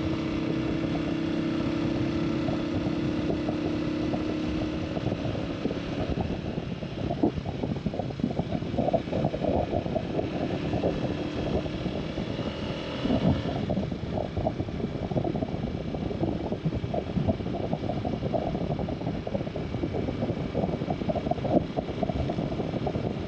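Motorcycle engine running while the bike is ridden. It holds a steady tone for the first few seconds, then turns into a busier rumble with scattered rattles from about six seconds in.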